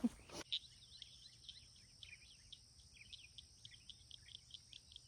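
Faint birds chirping outdoors: many short, high chirps that come quicker and more evenly toward the end, over a steady high insect hiss.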